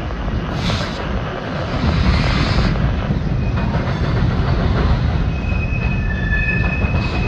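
Freight train of covered hopper cars rolling over a steel girder bridge: a steady low rumble of wheels on the rails and bridge deck. Thin high-pitched wheel squeal comes in from about five seconds in.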